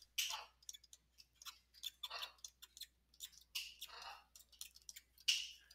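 Stylus tip tapping and scratching across a screen as words are handwritten: a quiet run of irregular small ticks, with a few short scratchy strokes.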